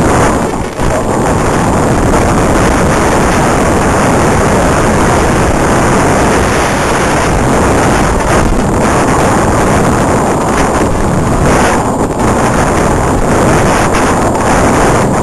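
Steady, loud rushing noise from a racing radio-controlled car's onboard camera microphone: wind buffeting the mic and the car's drivetrain at speed, with a thin steady high whine under it. The noise dips briefly near the start and again about twelve seconds in.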